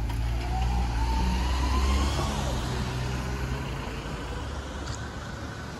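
A road vehicle passing on the street, its engine note rising as it speeds up over the first two seconds, then fading away into a steady traffic rumble.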